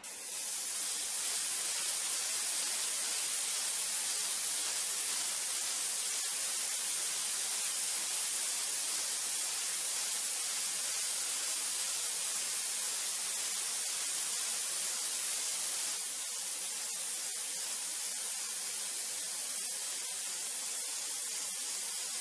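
Gravity-feed airbrush spraying a gloss clear coat: a steady hiss of air and atomised paint that eases slightly about sixteen seconds in.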